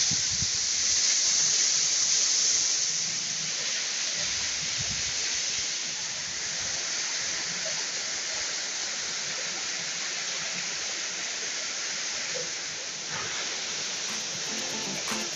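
Waterfall pouring down onto pebbles: a steady rushing hiss, a little louder in the first few seconds.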